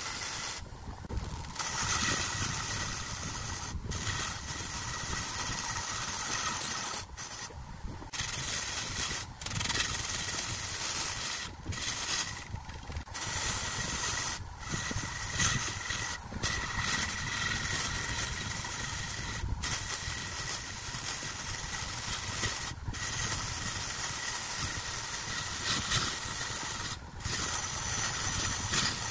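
Wood lathe running while a turning tool cuts the spinning wood, a steady hiss of shavings with brief breaks every few seconds.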